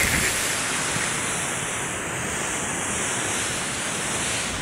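Rough sea surf churning and washing against shoreline rocks, a steady rushing noise, with some wind on the microphone.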